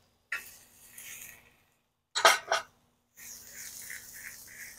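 Two quick metal clatters of a utensil on the Blackstone griddle's steel cooktop about two seconds in. From about three seconds in, a faint, steady sizzle of carrots, onion and mushrooms cooking on the hot griddle.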